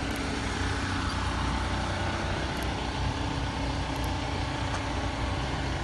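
Police patrol car idling: a steady engine hum.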